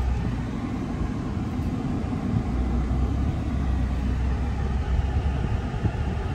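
Car in motion heard from inside its cabin: a steady low rumble of engine and road noise.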